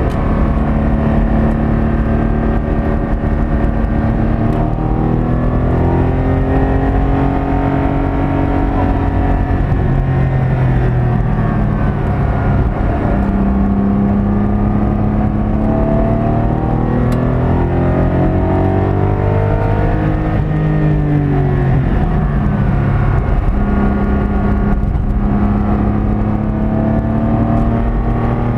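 Porsche 718 Cayman GT4's 4.0-litre flat-six heard from inside the cabin on track, its note rising under acceleration and falling off under braking several times, over steady road and tyre noise.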